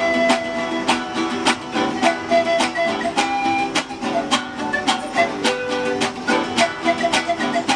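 Acoustic guitar strummed in a fast, even rhythm of several strokes a second, with single notes ringing over the chords.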